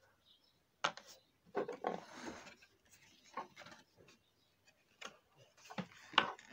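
Small hard plastic parts of a doll stand being handled and fitted together: a few sharp clicks, the loudest near the end, and a stretch of rubbing and rustling about two seconds in.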